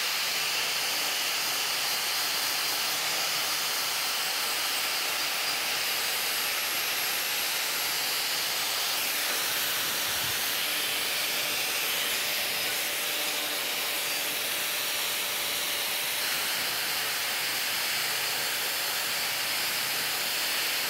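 Angle grinder with an Osborn wire wheel running steadily against a cast iron casting, a continuous high scratchy hiss as the wheel scrubs off old paint.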